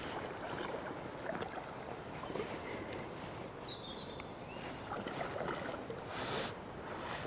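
Rushing water of a swollen, flooded river, a steady dense hiss, with a few short high bird notes about halfway through.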